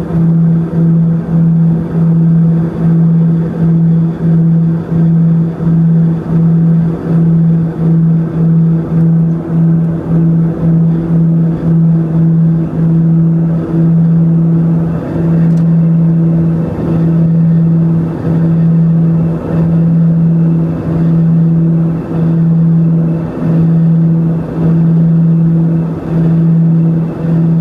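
Let L-410 Turbolet's twin turboprops heard inside the cockpit: a loud, deep, steady propeller drone over engine and airflow noise. The drone pulses in and out about once or twice a second, faster at first and slower later, the beat of the two propellers turning at slightly different speeds.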